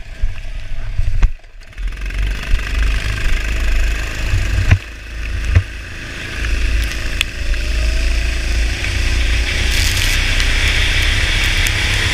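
Go-kart engine running as the kart pulls away on a wet track, its pitch rising about seven seconds in, under a heavy low rumble of wind and vibration on the onboard camera. A couple of sharp knocks come near the middle, and a hiss of tyre spray off the soaked tarmac builds toward the end.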